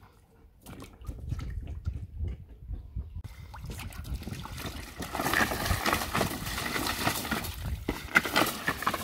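A German Shepherd splashing and sloshing water in a plastic paddling pool. It starts about a second in and grows louder and busier from about the middle.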